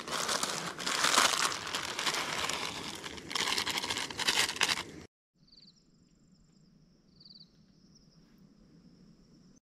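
Plastic instant-noodle wrapper crinkling and tearing in bursts as a Maggi packet is handled and opened, cutting off abruptly about five seconds in to quiet with a faint high steady tone and two brief high chirps.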